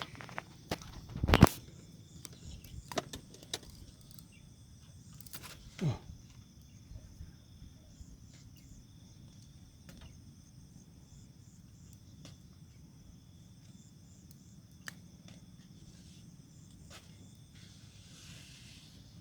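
Insects chirring steadily in thin, high tones over a faint outdoor hum, with a few knocks and bumps in the first six seconds, the loudest about a second and a half in.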